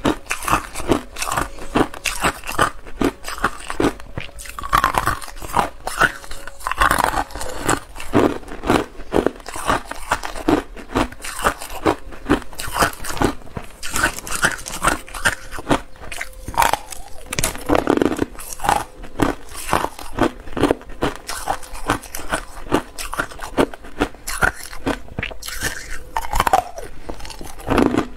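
Hard clear ice being bitten and chewed, a dense run of sharp crunches and cracks several times a second.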